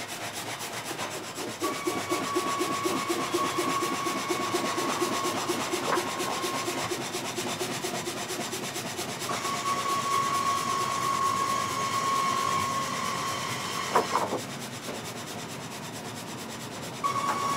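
Old frame saw (gang saw) cutting a log: the reciprocating blades rasp through the wood in a steady rhythm, with a high whining tone that comes in three stretches. Two sharp knocks, about six seconds in and again near fourteen seconds.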